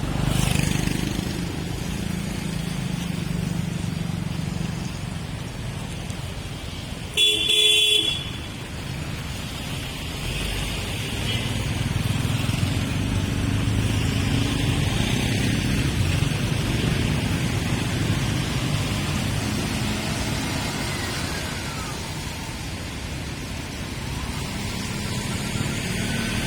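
Steady road traffic with motorbikes and cars passing. One vehicle horn honks for about a second, some seven seconds in.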